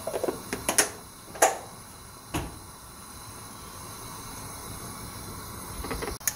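Light knocks and clinks of kitchen things being handled: about four in the first two and a half seconds, then a faint steady hiss, with a couple more clicks near the end.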